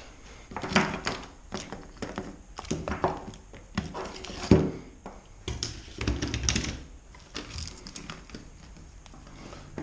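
Irregular thunks and taps of clamps being fetched and handled, hard objects knocking against each other and a surface.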